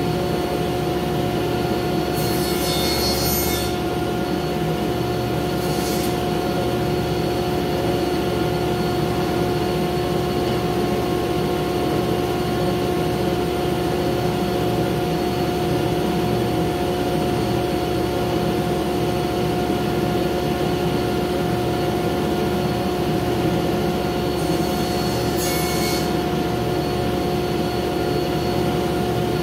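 Steady hum of a workshop machine's motor running at constant speed. A few short scrapes of wood being handled or rubbed come about two seconds in, around six seconds, and near the end.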